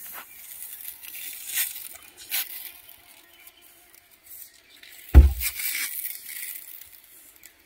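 Hand-pump pressure sprayer hissing in short squirts as insect repellent is sprayed into a dog's coat: three quick squirts, then a longer spray. A loud thump about five seconds in.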